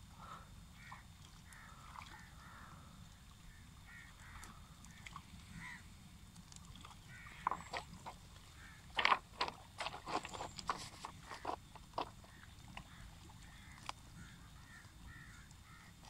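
Fish caught in a gill net splashing and thrashing in shallow water as the net is hauled onto a stony riverbank, with a burst of sharp splashes and clatters from about halfway through, the loudest near the middle.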